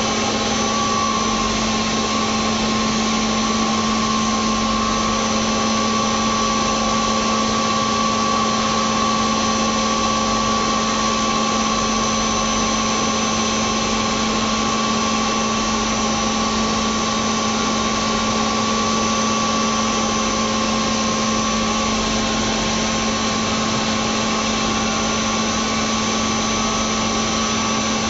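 CNC machine running steadily: an unchanging mechanical hum with a low tone and a thinner high whine above it.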